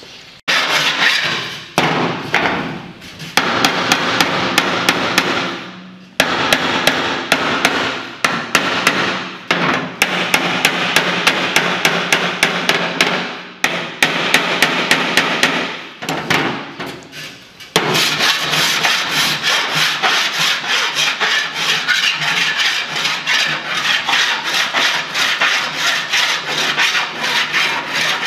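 Rapid hammer blows on sheet steel, hammer-and-dolly work along the edge of a pickup cab panel, in runs of several seconds with short pauses. About 18 seconds in it changes to steady back-and-forth rasping strokes of a body file across the metal.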